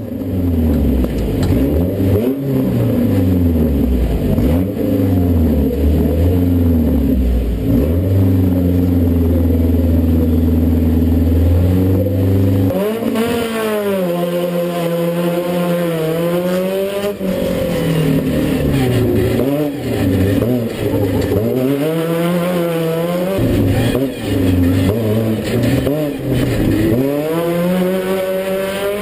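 Alumicraft Class 10 off-road race car's engine, heard from on board. It revs up and down in blips, holds at steady revs for a few seconds, then, about halfway through, accelerates through the gears with the revs climbing and dropping at each shift.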